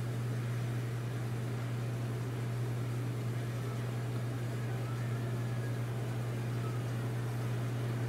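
Steady low machine hum with an even hiss over it, unchanging throughout.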